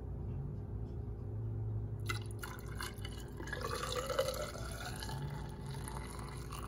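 Windshield washer fluid pouring from a plastic jug in a thin stream into the washer reservoir, topping it off, starting about two seconds in.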